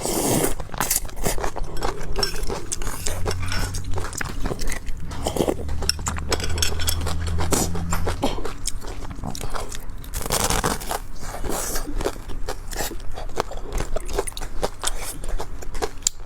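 Close-up eating sounds: biting and chewing a meat-filled glutinous dough snack, with a continuous stream of small wet mouth clicks and crunches.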